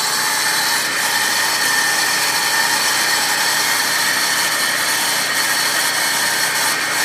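Engine bay of a 2002 Nissan Xterra with the supercharged VG33ER V6 running, giving off a strange steady noise: several high whining tones over a hiss. The owner suspects the Eaton M62 supercharger.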